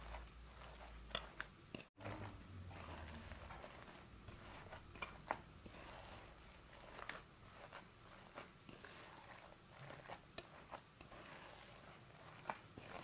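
Hand kneading and squeezing a moist Koofte Tabrizi mixture of minced lamb, rice, split peas and herbs in a bowl: faint squelching with many small scattered clicks.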